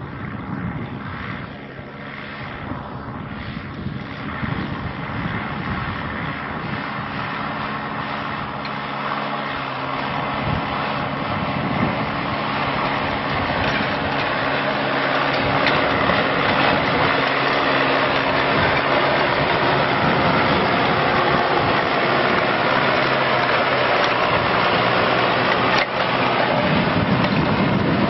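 Tractor engine running steadily, growing louder over the first half and then holding, with a broad rushing noise over its low hum.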